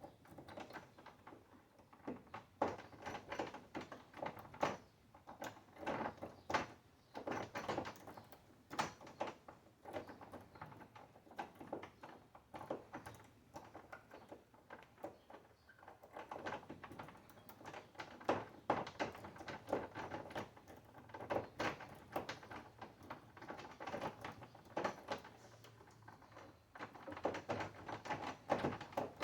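Metal lock-pick rake scraped in and out of a five-pin tumbler lock cylinder under light tension: rapid, irregular clicking and rattling as the pins are bounced, in bursts with short quieter pauses.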